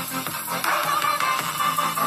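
Electronic dance music with a steady beat, played through four small full-range speakers driven by a homemade TDA7377 four-channel amplifier. The sound is thin, with little deep bass.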